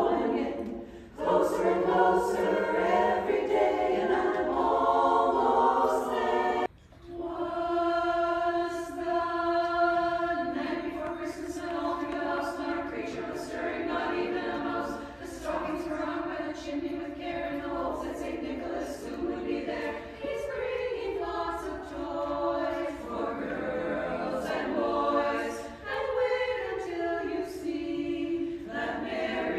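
Women's chorus singing a cappella in harmony. About seven seconds in the singing cuts off abruptly and another a cappella song by the chorus begins.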